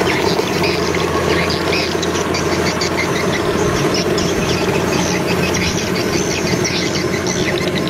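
Kubota DC93 rice combine harvester working under load as it cuts and threshes standing rice: a steady engine drone overlaid with a fast, irregular clatter from the cutter bar and threshing works.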